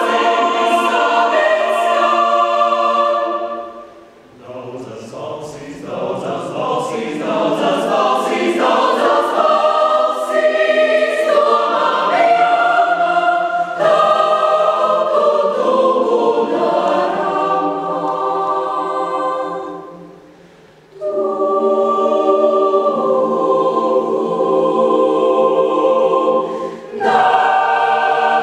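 Mixed choir of men's and women's voices singing a Latvian choral song in parts, in long phrases broken by two short pauses about 4 and 20 seconds in.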